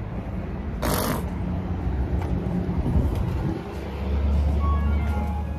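Low steady rumble of vehicle engines, with a short sharp burst of hiss about a second in and a stronger low hum in the last second and a half.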